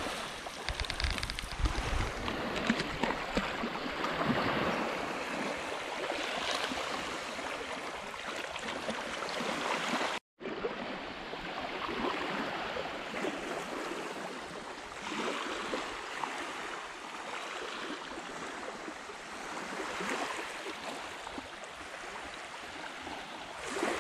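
Lake water splashing and sloshing as a dog swims, then small waves lapping on a sandy shore, a soft wash that swells every few seconds.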